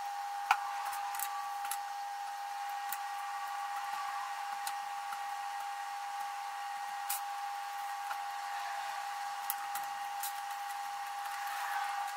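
A steady high-pitched whine runs throughout, with a few sharp clicks and taps of small plastic and metal drone parts being handled; the loudest click comes about half a second in.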